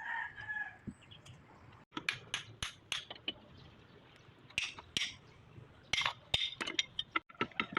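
Light metallic clinks and taps of hand tools and metal parts being handled during a hydraulic repair, coming in short irregular runs of sharp clicks.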